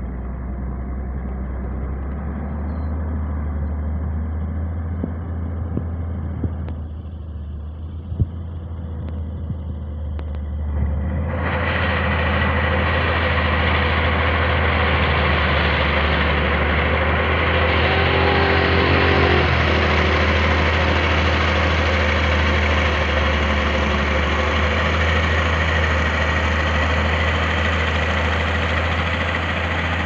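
Diesel engine of a motor grader running steadily under load as it grades dirt. About eleven seconds in, the sound jumps louder and brighter, with much more hiss over the engine hum.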